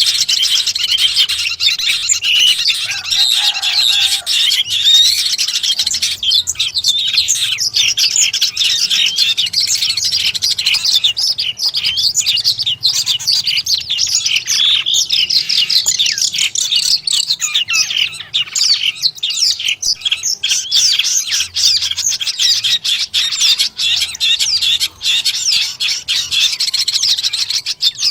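Long-tailed shrike (cendet) singing a rapid, unbroken chattering song of busy high-pitched notes.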